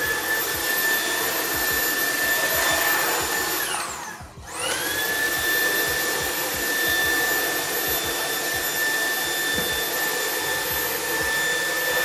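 Dreame P10 cordless stick vacuum running at maximum power on a pile bath mat: a high motor whine over the rush of suction. The motor winds down and stops about four seconds in, then spins back up and runs steadily, starting to wind down again at the very end.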